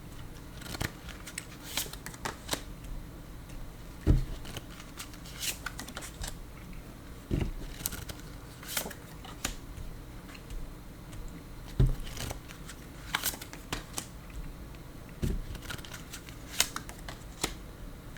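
A tarot deck being shuffled and handled by hand: a steady run of soft card flicks and clicks, with four louder knocks spaced a few seconds apart as the cards are tapped or set down.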